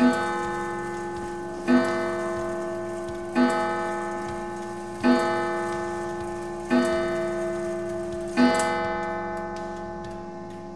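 Seth Thomas mantel clock's No. 89C eight-day time-and-strike movement striking the hour six times on its coil gong. The strokes come about every second and three-quarters, each ringing on and fading under the next.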